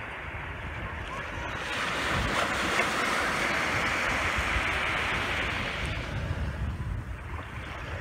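Small waves washing onto a sandy beach: one wave builds about two seconds in, stays loudest for several seconds, then fades away.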